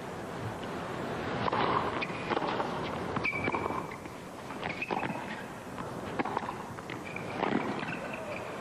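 Tennis rally on a hard court: a series of sharp pops as rackets strike the ball back and forth, with a few short high shoe squeaks, over the steady hiss of a stadium crowd.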